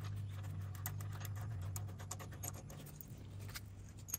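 Faint scratching and light clicking of a hand tap wrench turning a 3/8-16 tap, cutting threads into a mounting hole in a Kohler engine's cast base, over a steady low hum.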